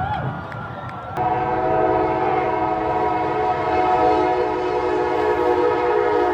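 A loud horn sounding a sustained chord of several steady tones, which starts about a second in after a single steady tone.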